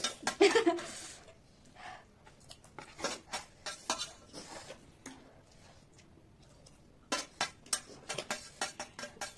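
Spoons and forks clicking and scraping against plates as noodles are eaten: scattered light clicks, coming thicker and faster near the end.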